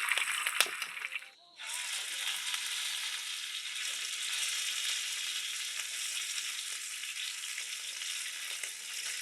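Meat sizzling and crackling on a hot pan, with a few light clicks in the first second. The sound drops out for a moment about a second and a half in, then the sizzling carries on steadily.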